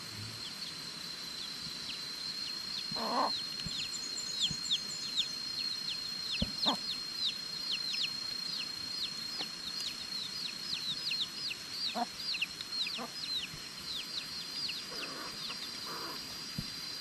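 Outdoor rural ambience: a steady high-pitched whine with many quick falling high chirps, two or three a second, and a few short knocks or clucks scattered through.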